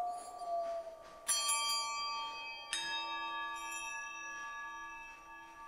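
Metal bells struck twice, about a second and a half apart, each strike ringing on with many bright overtones. Before the strikes, a single slightly falling tone fades out over the first second.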